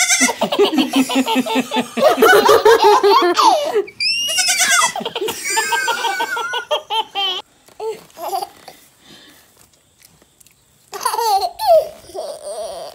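A baby laughing in rapid, repeated belly-laugh bursts, dropping to a quieter stretch past the middle, then another burst of laughter near the end.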